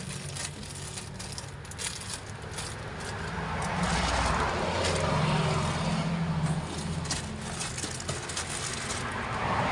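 A motor vehicle's engine running, growing louder for a few seconds in the middle.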